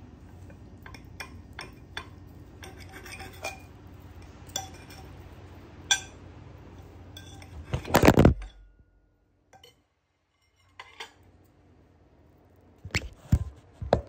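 Cutlery clinking against plates and dishes during a meal, in scattered short clinks over a low steady background hum. About eight seconds in there is a louder knock, followed by a couple of seconds of near silence before the clinking resumes.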